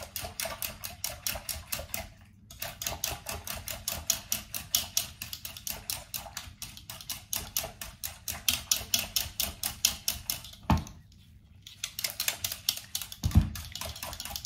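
Whisk beating a thin egg, oil and water mix in a mixing bowl: rapid, even clicking strokes, about five a second, with two short pauses. There is a low knock near the end.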